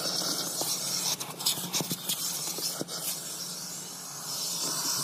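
Vacuum cleaner running with a steady hiss, broken by scratches and clicks.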